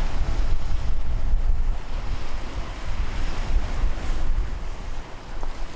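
Wind buffeting the microphone: a heavy, uneven low rumble with a hiss above it once the music has stopped.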